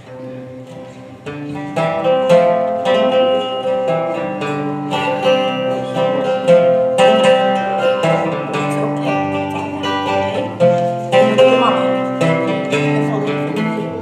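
Instrumental music led by plucked guitar notes, soft at first and louder from about two seconds in.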